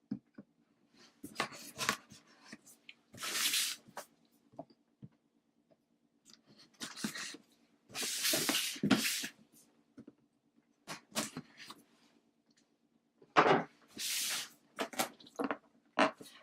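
Cardboard product box being opened and handled: several bursts of scraping and rustling as flaps and packaging slide, with scattered knocks and taps.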